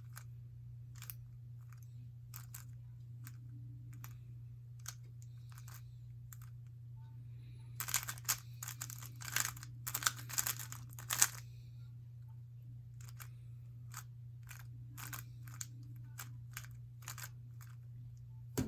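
Plastic layers of a 3x3 Rubik's speedcube clicking as they are turned through an algorithm: scattered single clicks, then a quick flurry of turns about eight to eleven seconds in. A steady low hum runs underneath.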